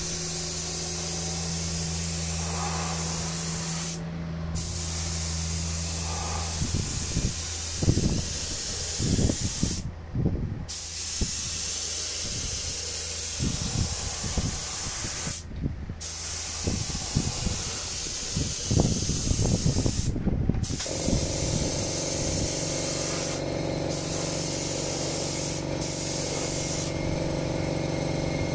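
Gravity-feed paint spray gun hissing as it sprays, the air cutting off briefly four times when the trigger is let go.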